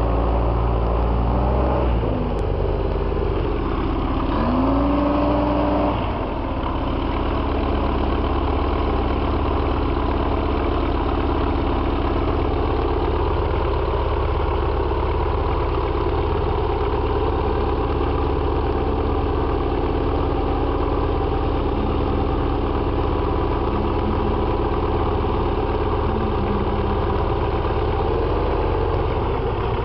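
SeaRey amphibian's pusher engine and propeller running as the plane taxis. The engine speed rises and falls a few times in the first six seconds, then settles to a steady low-power run.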